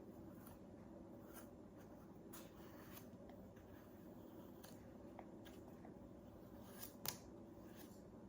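Faint scraping strokes of a knife peeling the skin off a firm papaya, every second or so, with one sharper click about seven seconds in.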